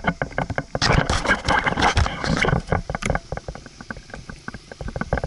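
Dirt bike engine running: loud and rough for about the first three seconds, then settling into a quick, even idle putter.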